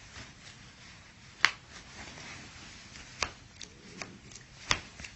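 Joints cracking during a chiropractic adjustment: three sharp pops about a second and a half apart, with a few fainter clicks between them.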